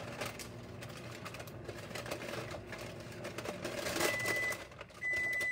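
Oat mixture being scraped and knocked out of a stainless steel pot into a lined baking pan: a busy run of scraping and clattering. About four seconds in, a microwave starts beeping, a steady high tone about half a second long, sounding twice about a second apart.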